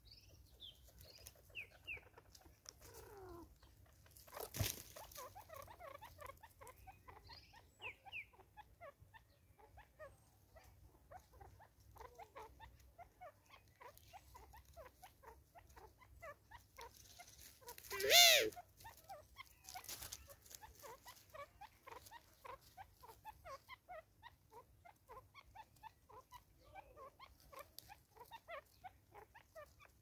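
Wild birds chirping with many short notes throughout, with one loud, brief animal call about two-thirds of the way through and a sharp click near the start.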